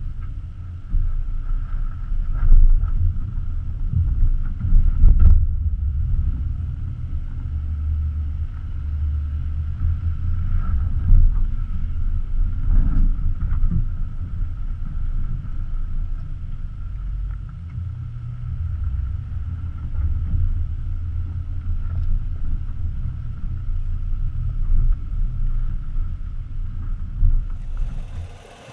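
2017 Nissan Armada SUV driving slowly over a dirt off-road trail, heard from a camera mounted low on its body by the front wheel: a loud, uneven low rumble from the vehicle and its tyres on dirt, with a few short knocks.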